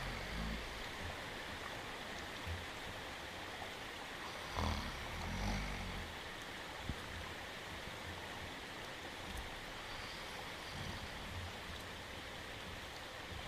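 Steady rain hiss with a cartoon dog's snoring: the end of one snore at the very start, then another about four and a half seconds in, two low breaths about a second apart. A single sharp click comes shortly after.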